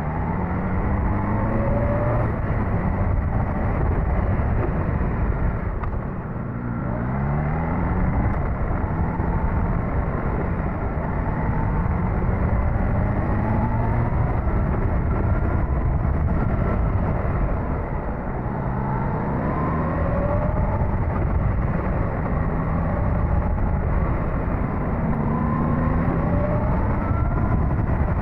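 Suzuki GSX-S1000GT motorcycle's inline-four engine running under way. Its pitch climbs several times as the bike accelerates, with brief dips between, over steady wind and road noise.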